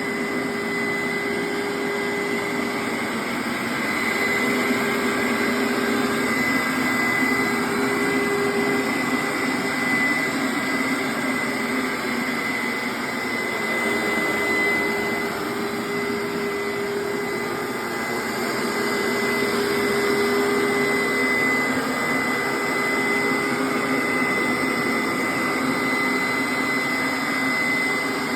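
Hoover SteamVac Dual V carpet cleaner running on rinse: its suction motor gives a steady high whine over a dense whoosh of air and brush noise, and a lower hum comes and goes as the loudness gently swells and fades.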